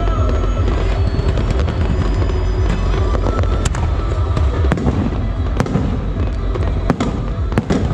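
Aerial fireworks shells bursting overhead: a rapid string of sharp bangs and crackles over a continuous low rumble.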